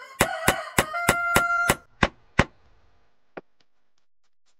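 Short percussive music sting: a run of sharp, evenly spaced knocks, about three a second, over a held electronic tone, stopping about two and a half seconds in. Two faint clicks follow near the end.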